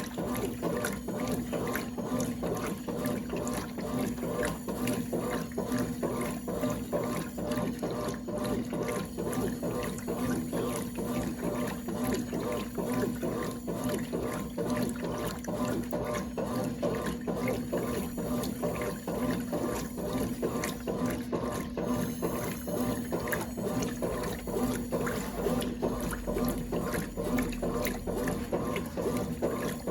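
A 1996 Brastemp Clean 5 kg top-loading washing machine running, with water sloshing and flowing in its tub over a steady hum.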